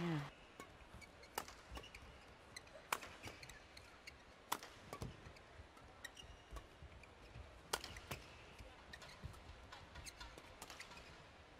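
Badminton rackets striking the shuttlecock in a doubles rally: sharp cracks at about one-and-a-half-second intervals, with faint squeaks of court shoes between them.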